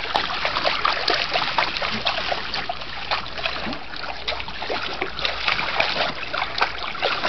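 Water sloshing and splashing steadily around the legs of a bulldog wading in a shallow plastic kiddie pool.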